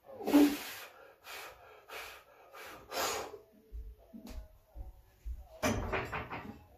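Forceful breathing of a man squatting a loaded barbell: a string of sharp, hissy breaths about every half second, with a few low thuds in the middle and a longer, strained burst of breath near the end as he works out of the squat.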